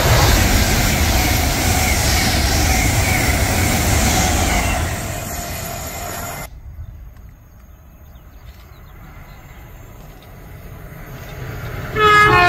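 A train passing close by: a loud rumble with a thin high squeal from the wheels, fading away over about five seconds. After a sudden drop to a quieter background, a train horn sounds loudly right at the end.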